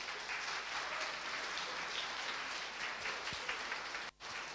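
Audience applauding, a steady patter of many hands clapping. The sound cuts out completely for a moment near the end, a dropout in the recording.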